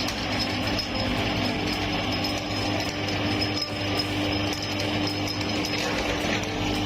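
Electric meat grinder running steadily with a constant motor hum, crunching and clicking as it grinds hard coconut candy.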